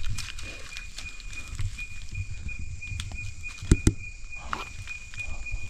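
Outdoor rustling and footsteps with a steady high-pitched tone throughout, and two sharp knocks close together about two-thirds of the way in.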